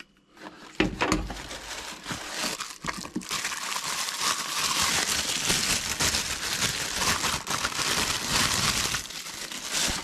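Thin clear plastic bag crinkling and rustling as it is handled and unwrapped, louder from about three seconds in. There is a light knock about a second in.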